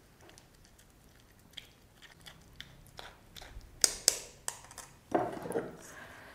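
Steel spoon crushing soft custard apple pulp in a wire-mesh sieve: faint wet squishing and scraping with scattered small clicks of the spoon on the mesh. The clicks grow busier as it goes, with two sharper ones about four seconds in.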